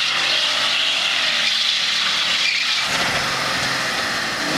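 Ford Mustang convertible doing a burnout: engine held at high revs while the rear tyres spin and squeal on the pavement, a loud steady hiss-and-squeal with the engine note underneath. About three seconds in, the engine's deeper tones come up more strongly.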